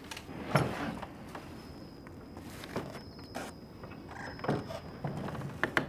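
Soft footsteps and clothing rustle, a few light scattered steps, under a faint high steady tone.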